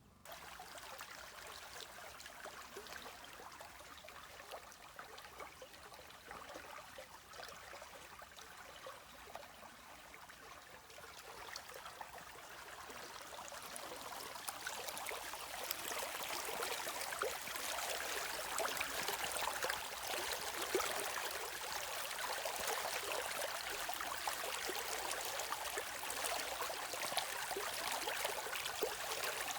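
River or stream water running over stones: a steady, splashy rush that starts suddenly and grows louder about halfway through.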